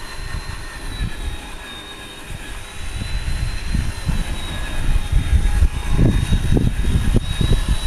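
Electric Traxxas Summit RC monster truck driving on asphalt, with a steady high whine and an uneven low rumble that grows louder from about three seconds in.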